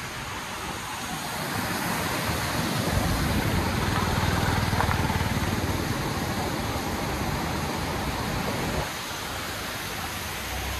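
Steady rush of a large waterfall, with a low rumble that builds about two seconds in and stops abruptly near the end.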